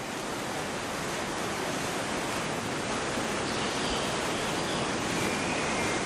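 Steady rushing roar of monsoon rain and a waterfall pouring in rainforest, with faint high chirps over it in the second half.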